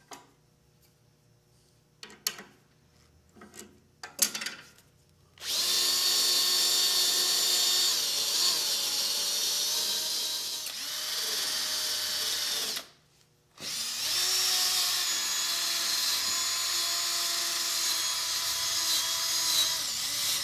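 Cordless drill spinning a brass wire brush against the rusted cast housing of an old Sears contractor table saw's arbor, scrubbing rust off. A few clicks of handling first, then two long runs of the drill and brush of about seven seconds each with a short stop between.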